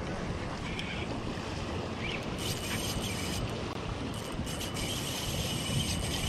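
Wind buffeting the microphone over small waves washing against jetty rocks, a steady rushing noise.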